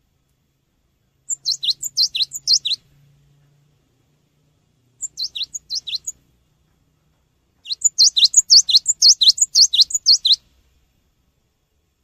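Cinereous tit (gelatik batu) singing: three bursts of rapidly repeated high, falling notes in quick pairs, the third burst the longest and loudest, coming about two-thirds of the way in.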